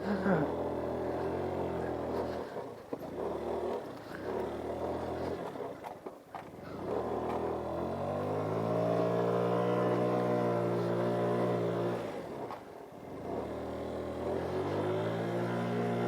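GY6 50cc scooter's four-stroke single-cylinder engine running under throttle on a trail ride, its pitch rising and falling, with the revs dropping away briefly several times as the throttle is closed.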